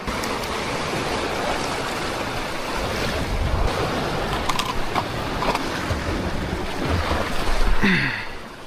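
Wind blowing on the microphone over the wash of sea waves, with gusty low rumbles. Near the end there is a brief falling-pitched sound, after which the wind noise eases.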